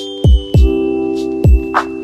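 Electronic background music: held synth chords over a deep kick drum that hits three times, with a clap-like hit near the end.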